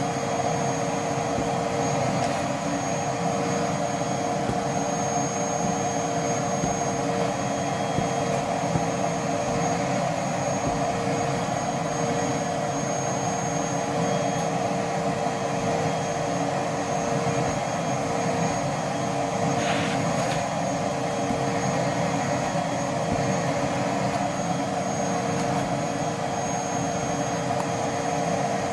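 Vacuum cleaner running steadily: a constant motor whine over rushing air.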